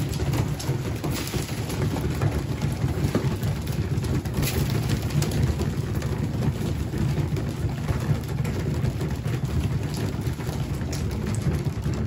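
A flock of young pigeons pecking grain off a concrete floor: a dense, rain-like patter of beak taps, over a steady low hum.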